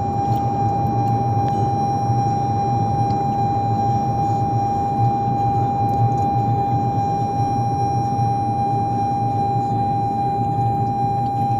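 2021 Toyota Corolla seatbelt reminder in its escalated stage, a constant high steady tone that doesn't let up, warning that the driver's seatbelt is unbuckled. A low rumble from the car sits underneath.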